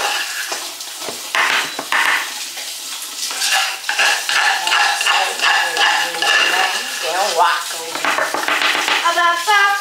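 Spatula scraping cake batter around the inside of a saucepan and into a muffin tin, in repeated scraping strokes.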